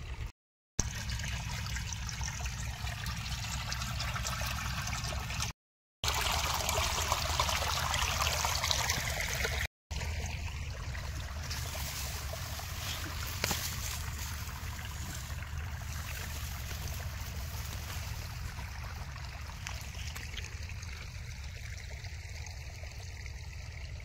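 Irrigation water running and trickling into a flooded rice paddy through a newly opened field inlet, a steady wash of flowing water.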